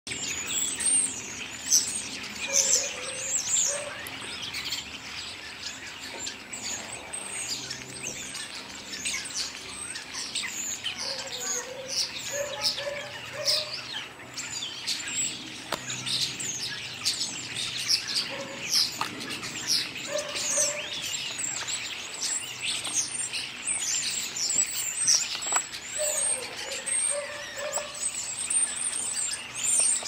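A group of common starlings singing together in a chorus: a continuous tangle of high whistles and rising and falling slurs, with short runs of lower warbling notes now and then.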